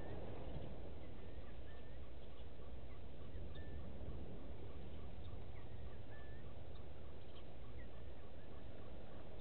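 Bush ambience with birds calling: scattered short chirping whistles over a steady call that pulses about four times a second, and a low steady rumble underneath.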